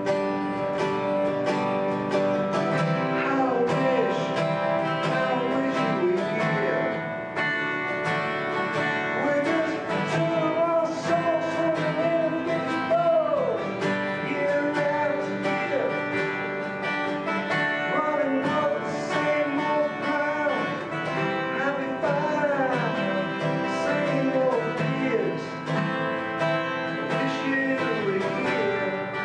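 Two acoustic guitars playing together live, with a man singing over them from a few seconds in.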